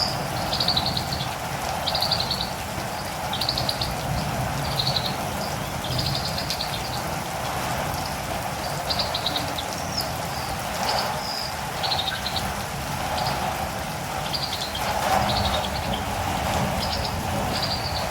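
Steady rain with catirumbava birds calling over it: short, high, chattering notes repeated about once a second.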